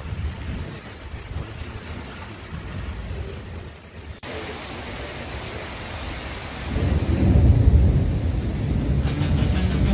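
Rain falling steadily during a thunderstorm, with a long low roll of thunder that swells about two-thirds of the way in and keeps rumbling to the end.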